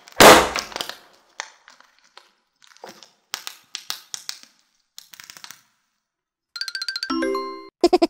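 A squeezed rubber balloon pops with a loud bang, followed by scattered small clicks and rustles from plastic toys being handled. Near the end comes a short electronic chime-like sound effect.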